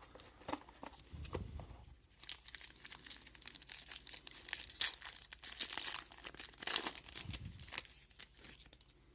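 Sealed pack of football trading cards being torn open, its wrapper crinkling and crackling in bursts. The loudest tear comes about halfway through.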